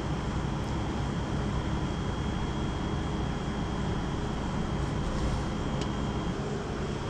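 Steady low mechanical hum and hiss with a thin high-pitched whine, and a couple of faint light ticks.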